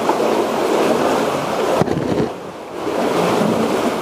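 Close, uneven rustling and scraping of clothing and gear against cave rock as a person crawls and rolls through a tight passage. There is a sharp knock a little under two seconds in, then a brief lull before the scraping resumes.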